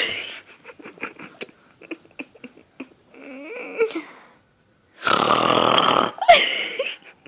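A person snoring loudly: the end of one long, rasping snore at the start and another lasting about a second from about five seconds in. Between them a baby makes a short, faint vocal sound.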